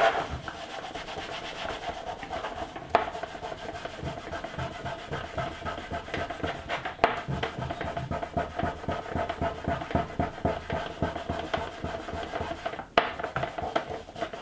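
Cloth rubbing plastic polish into the black plastic bottom case of a Commodore 16 in quick back-and-forth strokes, with an occasional sharp knock.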